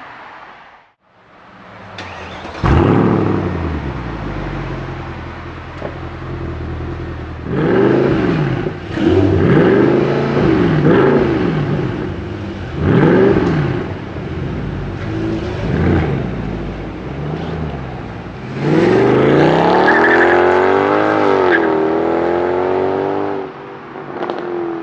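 Mercedes CLK63 AMG Black Series's 6.2-litre V8 firing up about three seconds in and settling to idle, then blipped through several sharp revs. Near the end it runs a long full-throttle acceleration with a gear change.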